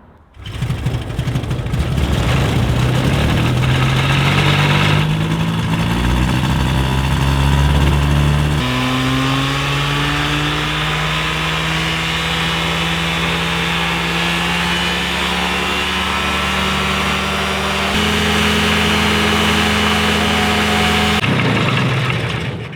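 Ultralight aircraft's Rotax engine and propeller running at high power, the pitch climbing steadily as it runs up toward full RPM, now reachable with the restrictive air filter removed. The tone jumps abruptly a few times, and the sound falls away near the end.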